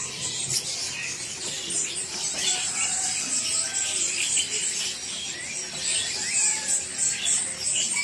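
Dense chirping of many caged birds at once, lovebirds among them: a busy, overlapping run of short shrill chirps and a few gliding calls, with music playing underneath.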